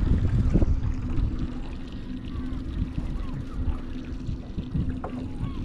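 Wind buffeting the microphone and water slapping against the hull of a small boat drifting at sea, over a steady low hum.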